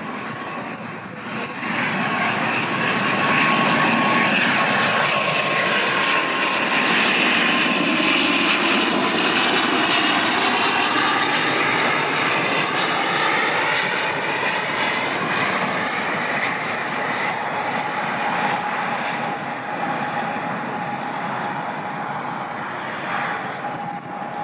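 ATR twin-turboprop airliner flying past on its landing approach: a steady drone of propellers and engines that swells about two seconds in and eases toward the end. A single tone in it slides slowly lower as the aircraft goes by.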